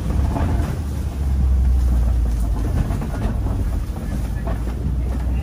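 Safari ride truck's engine running as the truck drives along, a steady low rumble that grows louder about a second in, with a few light knocks over it.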